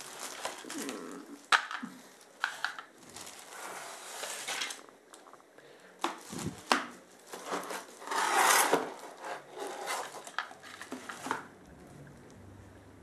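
Packaging being handled as a plastic-wrapped keyboard is pulled from its cardboard box: irregular rustling and crinkling of plastic and cardboard, with a few sharp taps and clicks. The loudest rustle comes about eight and a half seconds in.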